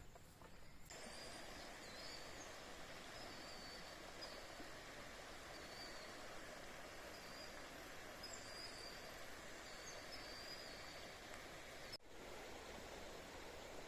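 Steady rush of flowing river water, with a bird calling over it in short, high, repeated chirps.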